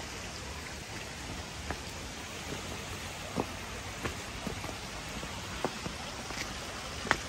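Steady hiss of light drizzle, with irregular sharp taps now and then; the loudest tap comes near the end.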